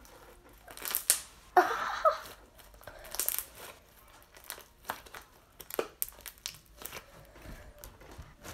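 Hands squishing and stretching a sticky, non-fluffy slime, giving irregular crackling clicks and pops.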